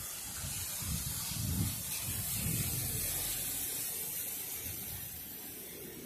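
Tyres hissing on a wet road as a car passes, the spray swelling a second or so in and fading toward the end.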